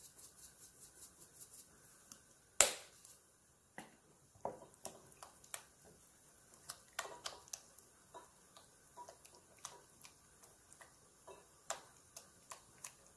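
Parsley flakes shaken from a spice jar, with rapid light ticks, then one sharp click about two and a half seconds in. After that, a silicone spatula stirs thick cheese mixture in a glass bowl, with scattered soft taps and knocks against the glass.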